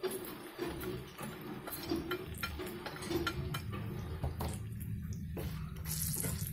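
Wooden spatula stirring and scraping spices frying in a little oil in a black kadai, with irregular small clicks and scrapes and a light sizzle.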